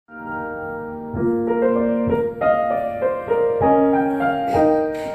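Piano introduction to a song: chords and a melody line played at a moderate pace.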